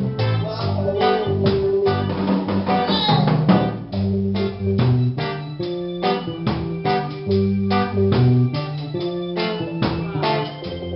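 Reggae band playing live: drum kit, bass guitar, electric guitars and keyboard together, with a steady rhythmic beat over a moving bass line.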